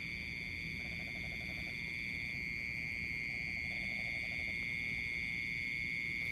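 Night chorus of insects trilling steadily at a high pitch, with frogs calling in short rhythmic trains of about a second each, several times.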